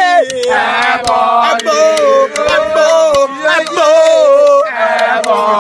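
A group of young men chanting a song in loud unison, holding long drawn-out notes with several voices at once.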